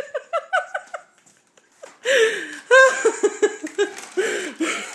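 High-pitched human laughter in quick giggling bursts for about a second. After a short pause it breaks out again at about two seconds and keeps going to the end.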